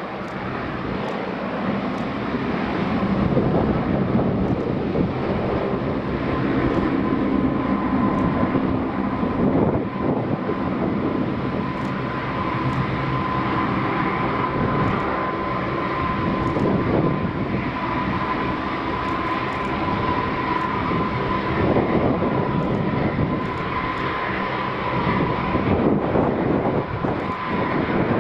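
Four-engine P-3 Orion-family turboprop (Allison T56 engines) running with a steady high whine over a broad rushing noise.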